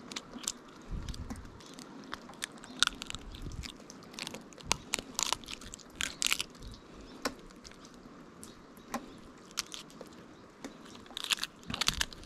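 Dungeness crab shell and gills being pulled apart by hand: irregular sharp cracks, snaps and crunches of shell, with a dense run of cracking near the end as the body is broken in half.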